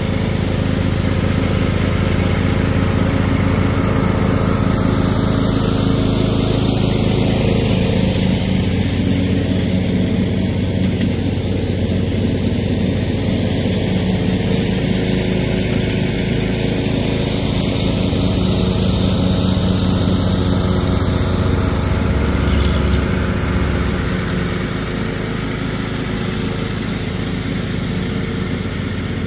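Riding lawn mower engine running steadily under load while mowing grass. It comes close by and then moves away, the sound easing off a little over three-quarters of the way through.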